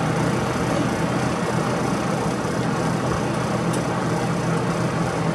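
A steady mechanical hum with a low buzz, a motor running without change.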